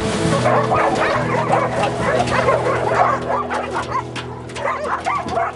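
Several dogs barking and yipping, many short barks overlapping one another, over steady background music.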